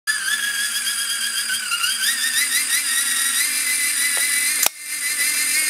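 High-pitched whine of a small toy electric motor and propeller running at speed, its pitch wavering and rising a little about two seconds in. A sharp click sounds near the end.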